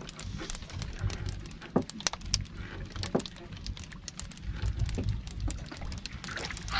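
Small splashes, drips and light knocks as a fishing longline is hauled by hand over the side of a wooden boat, with wind buffeting the microphone.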